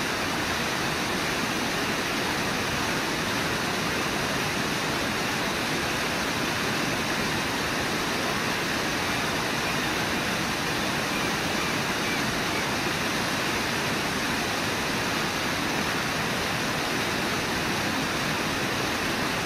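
Steady rush of the Brooks River's fast water churning into white foam, an even, unbroken sound with no separate splashes standing out.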